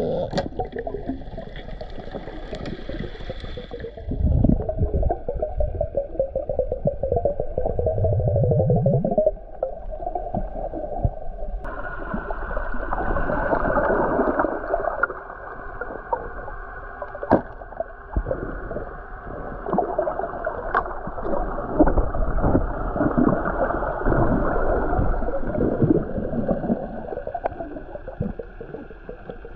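Underwater sound heard through an action camera's waterproof housing: a muffled rush of water with gurgling. It shifts abruptly about twelve seconds in, and a few sharp clicks stand out in the second half.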